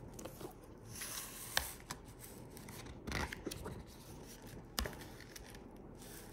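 Hardcover picture book being opened and its pages turned by hand: soft paper rustling and sliding, with two sharp taps, one about one and a half seconds in and one near the five-second mark.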